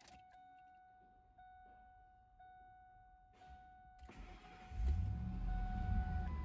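2004 Ford F-150 SVT Lightning's supercharged 5.4-litre V8 being cranked about four seconds in and catching almost at once, then running at a fast idle of around 2,000 rpm right after the start.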